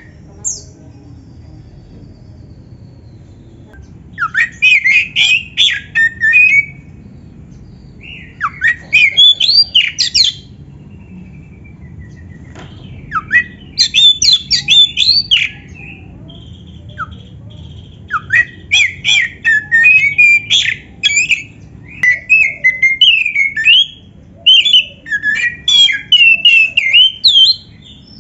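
Oriental magpie-robin (kacer) singing: loud bursts of fast, varied whistled phrases and sharp chips, each lasting one to three seconds with short pauses between, becoming almost continuous over the last several seconds.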